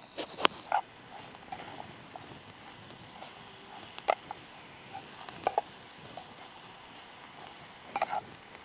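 Camp cooking at a small stove: scattered light clicks and knocks of utensils against a pan and plate, a few near the start and others about four, five and a half and eight seconds in.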